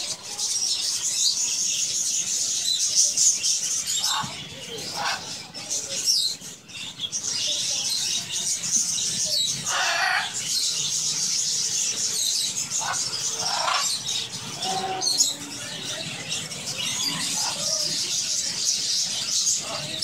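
A flock of budgerigars chattering and warbling without a break, a dense high twittering, with a few louder, lower calls breaking through now and then.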